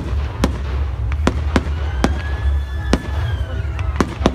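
Fireworks display: about eight sharp cracks and bangs of bursting shells, irregularly spaced, over a steady low rumble. A long whistle rises a little and then falls away through the middle.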